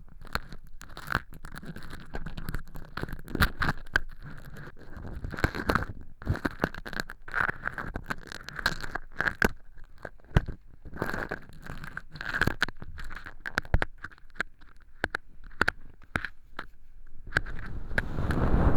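An earpick scraping and crackling dry cork-chip fake earwax inside a silicone ear model, in irregular crisp clicks and scrapes. Near the end it turns into a louder, continuous rustling against the microphone.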